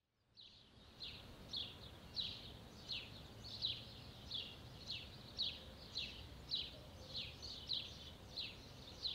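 A bird repeating the same short, falling chirp at an even pace, a little under two a second, starting about a second in. It is faint, over a low rumble of background noise.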